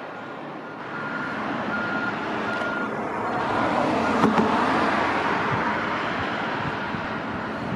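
Jet airliner passing close by, its engine noise swelling to a peak about four seconds in and then slowly easing off.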